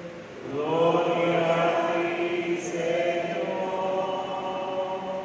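Liturgical chant sung slowly, with long held notes that glide gently between pitches.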